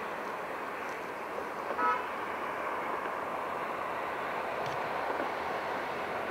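Steady hum of road traffic, with one short vehicle horn toot just under two seconds in.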